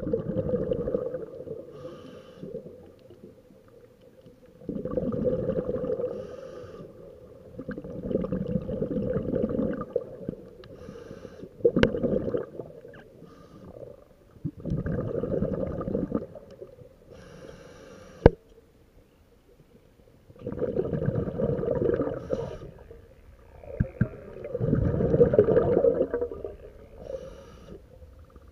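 Scuba diver breathing through a regulator underwater: a gurgling rush of exhaled bubbles lasting one to two seconds, about every four to five seconds, with a short hiss of the inhale between them. Two sharp clicks stand out, one near the middle and one a few seconds later.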